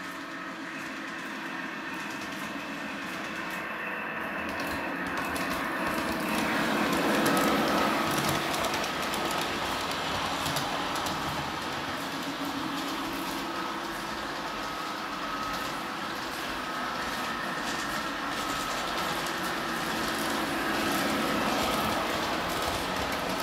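Model railway locomotive, a model of a 'Ludmila' diesel, running along the track with motor whine and wheel rumble. It grows louder over the first several seconds as it approaches, then carries on steadily.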